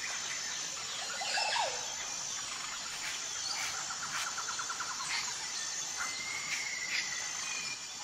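Small birds chirping over a steady high insect drone, with a rapid pulsing trill about three seconds in that lasts a second and a half.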